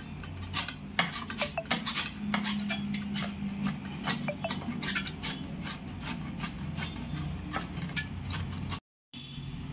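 Peeled raw mango grated on a stainless steel grater: a quick run of scraping strokes with metal clicks, about three or four a second, with a short break near the end.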